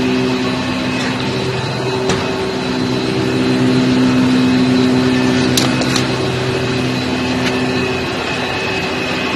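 Large engine-room machinery running: a loud, steady mechanical drone with a low, even hum and its overtones. A few short clicks come about two seconds in and again near the middle.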